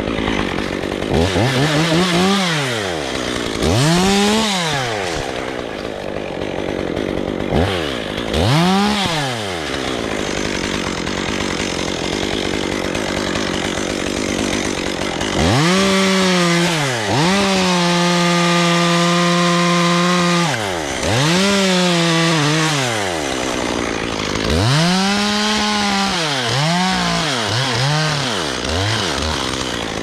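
Stihl top-handle chainsaw cutting limbs, revved up and let back down in a series of short bursts, with one longer steady full-throttle cut in the middle.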